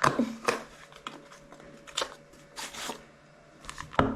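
Packaging and accessories being handled during an unboxing: a few sharp clicks and knocks, one at the start, one about half a second in, one about two seconds in and one near the end, with a short rustle of paper or plastic in between.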